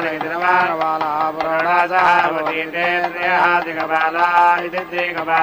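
Vedic mantras chanted in unison, with a steady drone beneath the voices.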